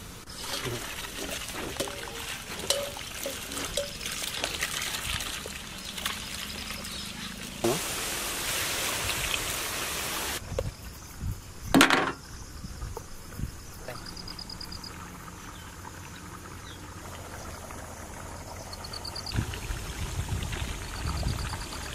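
Potato fries sizzling in a large wok of hot oil, with scattered clicks and knocks. The sizzle grows loud about eight seconds in and breaks off suddenly about two seconds later, followed by a brief sharp sound.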